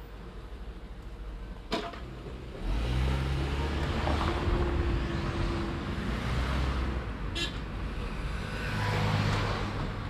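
Car driving along a town street: a steady rumble of engine and road noise that grows louder about two and a half seconds in, with two sharp clicks, one before it swells and one past the middle.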